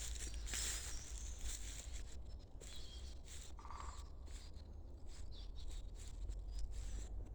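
Small birds chirping and twittering: many short, high chirps in quick succession, over a steady low rumble.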